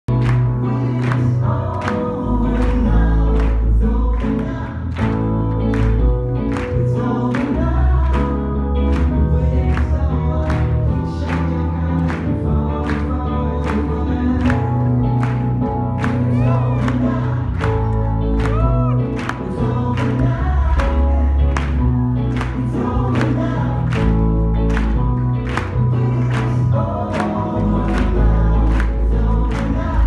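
Live soul music: singing over guitar and keyboard, with a sharp steady beat about twice a second.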